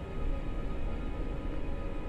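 Film score music: steady held tones over a deep low rumble, with no clear beat.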